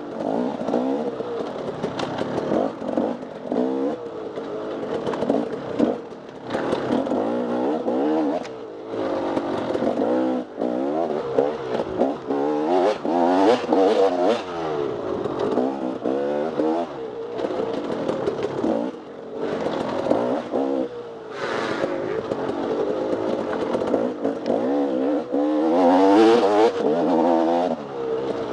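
Off-road dirt bike engine revving up and down over and over as the throttle is opened and chopped, with short dips in between and some clatter from the bike.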